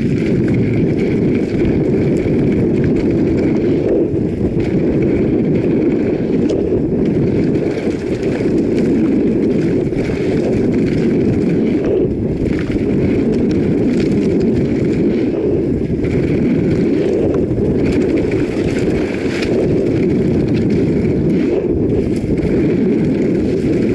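Steady wind rumble on an action camera's microphone as a mountain bike descends a dirt trail at speed, mixed with the noise of its tyres running over the dirt.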